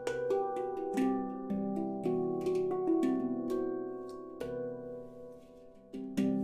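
Ten-note ember-steel handpan tuned to C Aegean, played with the fingers: notes struck one after another, each ringing on and overlapping the next. The playing thins and the ringing fades about four to six seconds in, then a loud strike comes near the end.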